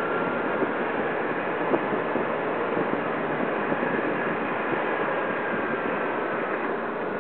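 Tesla Roadster electric sports car driving at steady speed, heard from inside the cabin: an even hiss of tyre and wind noise with a faint thin high whine, and no engine sound.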